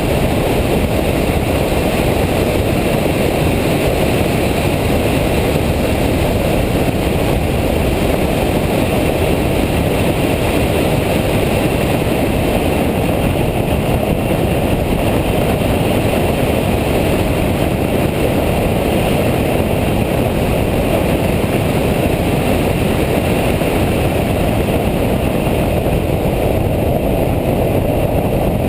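Nissan Nismo car running at speed on a race track, heard from inside the cabin: a loud, steady mix of engine, tyre and wind noise.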